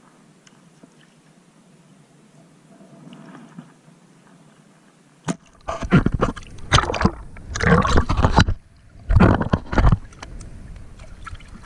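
Water sloshing and gurgling around a half-submerged action camera at the surface. It is faint at first; from about five seconds in, after a sharp click, come loud irregular bursts of splashing.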